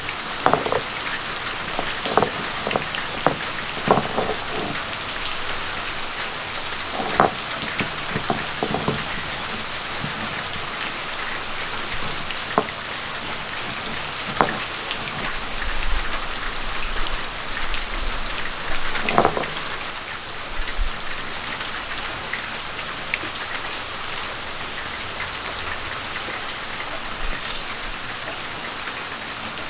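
Roasted mustard, fenugreek and cumin seeds crushed under the base of a clay pot on a flat grinding stone: scattered knocks and crunches of the pot against the stone, most of them in the first several seconds, over a steady background hiss.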